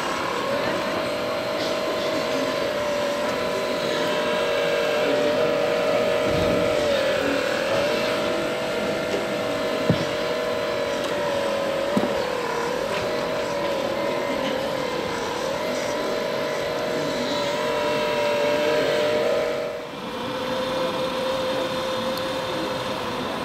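Electric hydraulic pump of a scale RC Liebherr 944 Litronic excavator whining steadily. Its pitch sags briefly again and again as the boom and bucket take load. There are a couple of sharp clicks, and near the end a brief drop, after which a slightly lower steady whine carries on.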